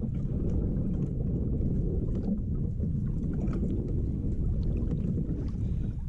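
Strong wind buffeting an action camera's microphone, a steady low rumble, with faint light ticks and splashes scattered over it.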